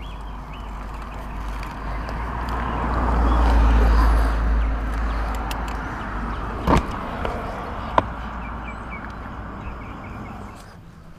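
A road vehicle passing close by: a rumble that builds to its loudest about four seconds in and then slowly fades away, with two sharp knocks about two and three seconds later.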